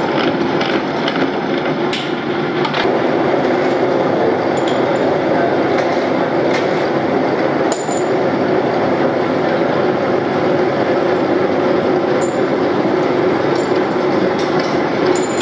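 Gear hobbing machine running steadily as its hob cuts the teeth of a steel motorcycle sprocket under flooding coolant, a constant mechanical drone with scattered sharp metallic clinks.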